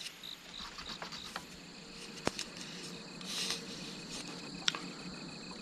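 Insects chirping steadily and faintly, with a sharp click a little over two seconds in and a smaller click near the end.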